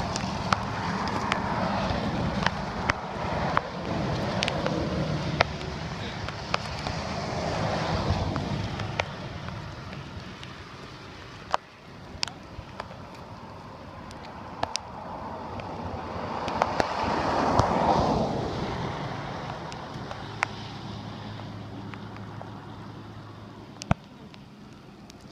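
Road traffic passing close by, swelling and fading twice. Scattered sharp clicks and knocks come from a bicycle tyre being worked back onto its rim by hand.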